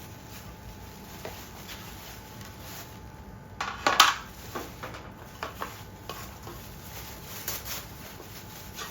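Metal parts being handled: a short scraping rattle about four seconds in, then a few light clicks and clinks.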